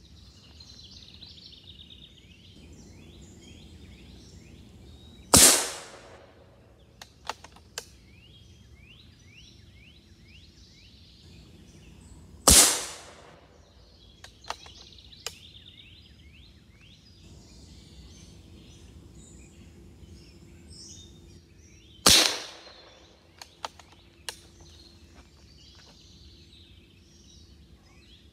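Three shots from a Benjamin Bulldog .357 big-bore PCP air rifle, several seconds apart. Each is a sharp crack with a short echoing tail, followed a second or two later by a couple of small clicks.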